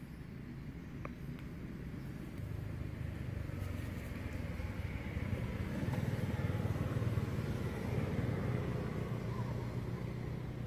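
A motor vehicle's engine passing by: a low rumble that swells over several seconds, is loudest a little past the middle, then fades.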